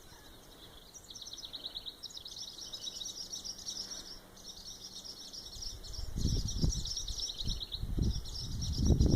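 Small birds calling in fast runs of high repeated chirps, starting about a second in: alarm calls of parent birds mobbing a cat near their young. Low irregular rumbling grows loud over the last three seconds and is the loudest sound.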